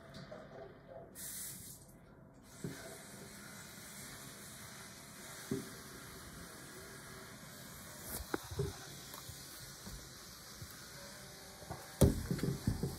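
Distant fireworks going off, a faint low boom every few seconds over a steady hiss. Near the end comes a quick cluster of much louder knocks and bumps.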